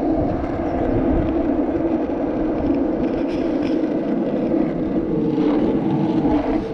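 Steady rolling hum of wheels moving along an asphalt road, with low rumble from wind on the microphone.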